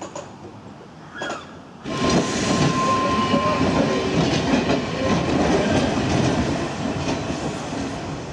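Manx Electric Railway tramcar and trailer running close past, wheels rumbling and clattering on the rails. The sound starts suddenly about two seconds in, with a steady high whine for about a second and a half at first.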